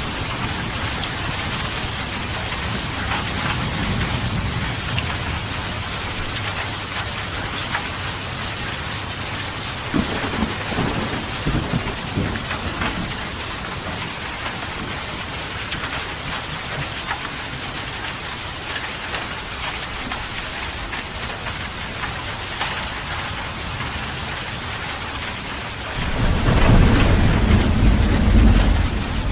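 Steady heavy rain pattering, with thunder rumbling low a few times and a louder, longer rumble of thunder near the end.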